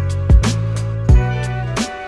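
Background music with a steady drum beat over a held bass line.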